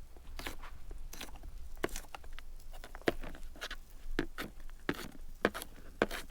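Knife chopping vegetables on a cutting board: sharp knocks at an uneven pace, about two a second.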